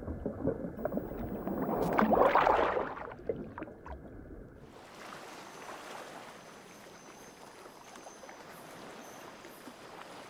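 Muffled, watery rushing that swells to a loud whoosh about two to three seconds in. About five seconds in it changes abruptly to a quieter, steady hiss.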